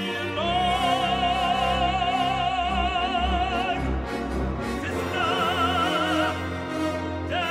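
Male operatic voice singing with orchestra: a long note held with wide vibrato, then a shorter phrase about five seconds in.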